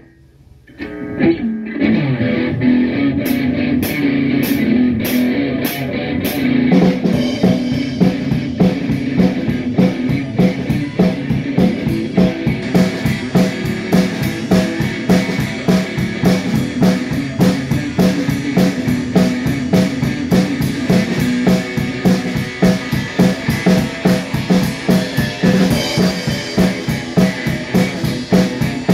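Electric guitar playing a blues groove over a drum beat, starting about a second in after a brief quiet gap.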